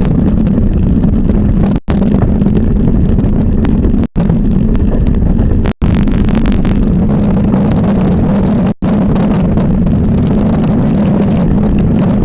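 Ice yacht running over the ice: a loud, steady rumble of the runners with wind buffeting the microphone. It breaks off for a moment four times, like cuts in the recording.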